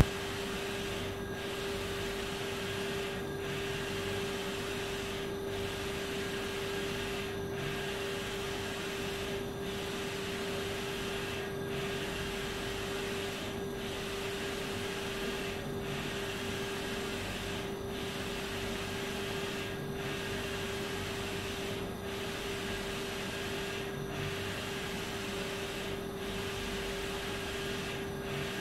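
Mutoh ValueJet wide-format inkjet printer printing a vinyl sign sheet: a steady mechanical hum as the print-head carriage passes back and forth, with a short dip about every two seconds as each pass ends.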